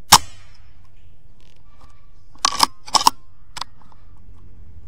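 Air rifle firing once with a sharp crack. About two and a half seconds later comes a quick run of sharp metallic clacks in two pairs, then a lighter click, as the rifle's action is worked.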